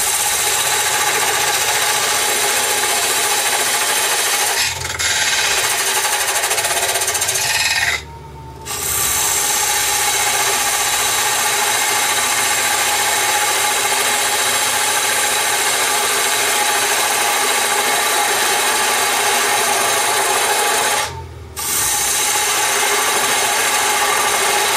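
A diamond parting tool cutting into wood spinning on a mini lathe: a steady scraping noise as it plunges straight in to cut a tenon in half-blade steps. It stops twice briefly, about a third of the way in and again near the end, as the tool is eased off between steps.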